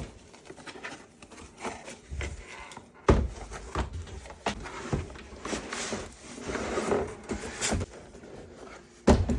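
Laptop box and packaging handled close to the microphone: cardboard scraping and sliding, with scattered knocks, the sharpest about three seconds in and again near the end.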